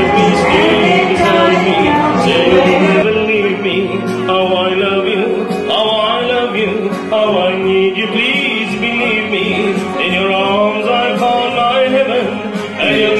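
A woman singing a slow solo song into a microphone, with long, wavering held notes.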